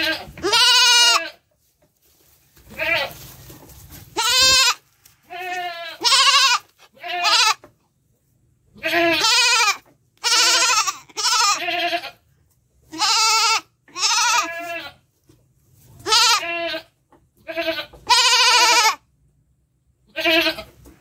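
A young goat kid bleating over and over, about fifteen short, high calls with brief gaps between them, as it is held and fitted with a rope halter.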